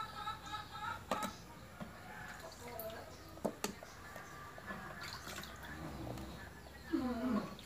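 Raw fish steaks being set by hand into a metal cooking pot: wet handling with a few sharp knocks of fish against the pot.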